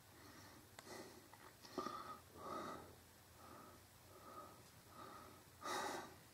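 Faint, quick breathing close to the microphone: soft breaths repeating a little under once a second.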